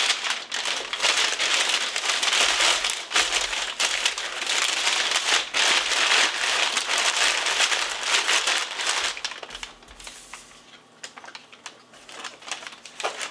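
Crumpled white packing paper rustling and crinkling as it is pulled out of a cardboard box and pushed back in, dense and steady for most of the time. About ten seconds in it drops to sparser, quieter crinkles of a plastic bag being handled.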